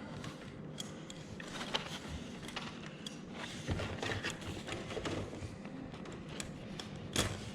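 Plastic vertical-blind slats being handled and clipped into the headrail's carrier clips: scattered light clicks and taps, a few louder ones about four seconds in and near the end.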